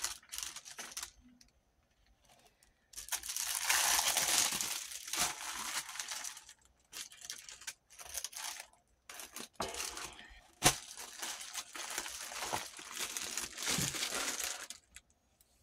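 Intermittent rustling and crinkling of plastic sticker sheets being handled, in uneven stretches with short quiet gaps, and one sharp click about ten and a half seconds in.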